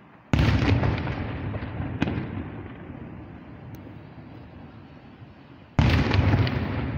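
Aerial firework shells bursting: two loud booms, one just after the start and one near the end, each dying away in a long rumble, with a smaller sharp crack about two seconds in.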